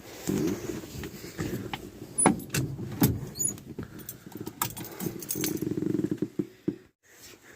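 A Chevelle's engine running unevenly on its freshly re-jetted Holley double-pumper carburetor, with sharp metallic clicks and clatter over it. The sound cuts off suddenly near the end.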